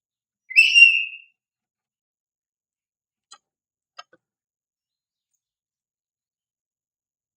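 Oriental magpie-robin (kacer) giving one short, clear whistled call about half a second in, rising slightly. Two faint ticks follow a few seconds later.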